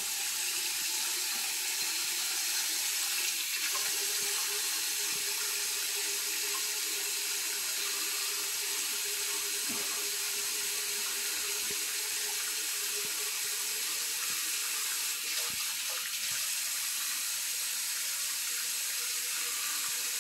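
Bathroom sink tap running steadily into the basin, an even hiss.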